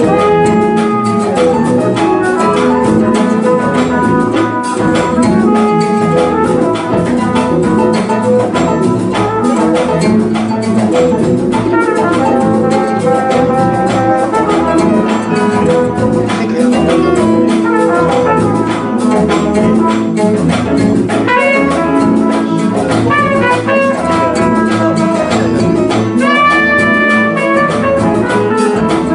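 Live jazz band playing, with a trumpet on the lead line over piano and guitar accompaniment.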